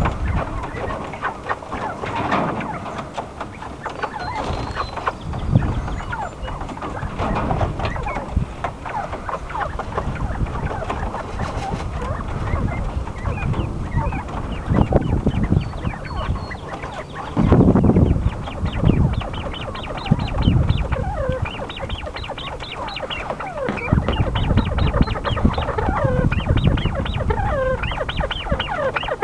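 Quail calling with short chirps and chatter, busiest in the last third, amid rustling and scratching as they dust-bathe in a bowl of sand. A brief loud low rumble comes just past the middle.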